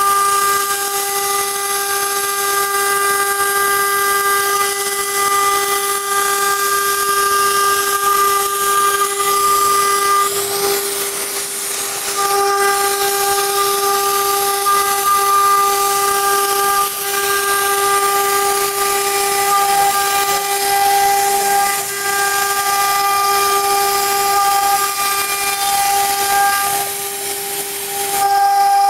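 CNC router spindle running at high speed with its bit cutting through a wooden board: a steady high-pitched whine over a cutting hiss. The whine briefly fades out about ten seconds in, then comes back.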